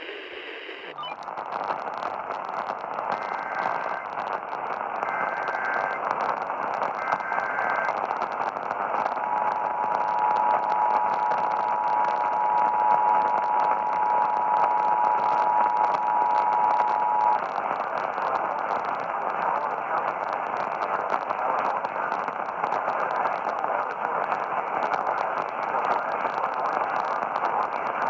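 Radio static, with an Emergency Alert System alert coming through it faintly: three short data bursts of the header a few seconds in, then the two-tone attention signal held steady for about eight seconds, after which only the static goes on.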